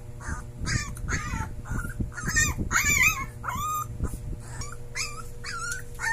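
Young Siberian husky puppy trying to howl: a quick run of short, high, wavering cries and yips, loudest about halfway through.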